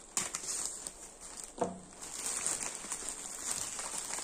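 Plastic courier mailer crinkling and rustling as it is cut open with a folding knife and pulled apart by hand, with scattered clicks and a short pitched sound about a second and a half in.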